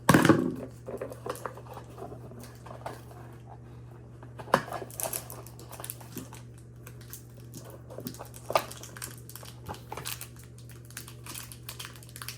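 Foil card-pack wrapper crinkling and rustling as it is worked open, with scattered clicks and taps of trading cards being handled. A loud rustle right at the start, and a couple of sharper snaps later on.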